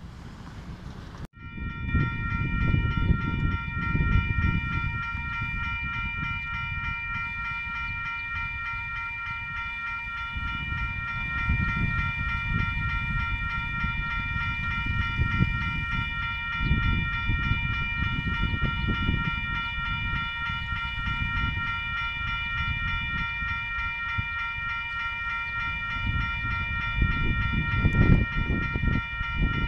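Railway level crossing warning bell ringing steadily with a rapid, high multi-tone ring from about a second in, the signal of an approaching train. Gusty wind rumbles on the microphone underneath.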